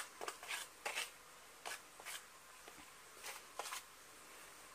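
Faint, irregular short scrapes of a utensil stirring cement-based glue powder and water into a paste in a small plastic tub.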